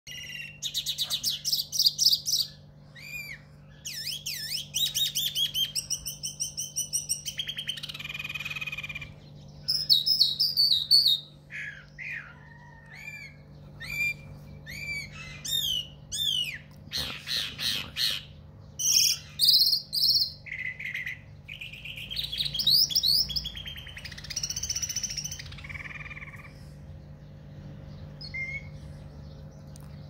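Caged larks singing: a varied run of rapid chirps, whistles and trills in short phrases broken by brief pauses, over a faint steady hum.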